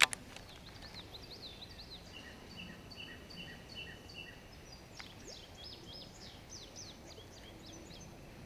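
Small birds singing: a run of short, evenly repeated high notes for the first few seconds, then another song of quick sweeping notes from about halfway through. A single sharp click sounds right at the start.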